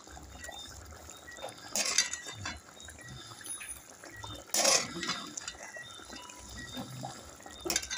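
A metal spoon stirring and scooping broth in a metal pot: short scrapes and sloshes, the loudest about two seconds in, again just before five seconds, and near the end.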